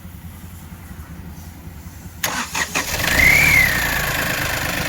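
Mahindra KUV100 engine being cranked on the starter and firing a little over two seconds in, with a brief rise and fall in revs before it settles to a steady idle: the first start after a timing chain replacement.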